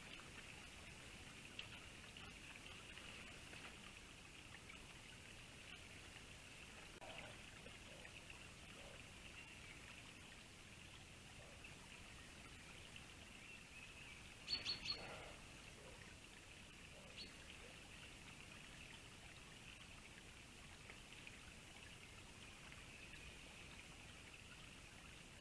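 Near silence with a steady faint high hiss. About halfway through come three quick, sharp, high clicks, with a few faint soft knocks in the seconds before them.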